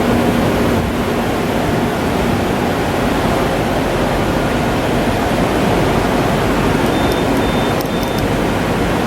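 Steady machinery noise with no clear rhythm, with three short high beeps and a few clicks about seven to eight seconds in.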